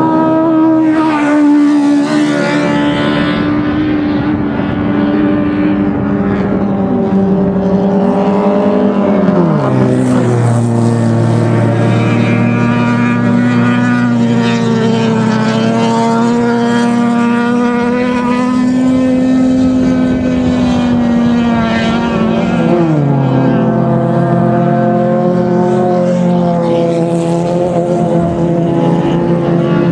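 Racing car engines running hard at high revs, the pitch holding steady for long stretches and dropping sharply twice, about nine seconds in and again near twenty-three seconds.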